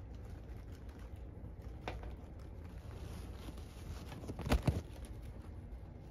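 Handling noise from hands gripping a bunch of sunflower stems close to the microphone: faint rustling over a low rumble, a single soft tap about two seconds in and a quick cluster of knocks about four and a half seconds in.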